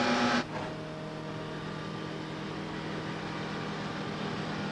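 Ford Cosworth 1.5-litre V6 twin-turbo Formula One engine running on a test bed. It is loud for the first half-second, then drops suddenly to a quieter, steady running sound with several held tones.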